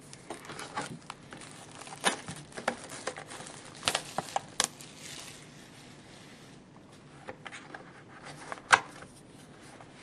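Shrink wrap crackling and tearing and the cardboard of a 2010-11 Panini Luxury Suite hockey card box being handled and its lid opened: scattered crinkles, rustles and clicks, with a sharper snap near the end.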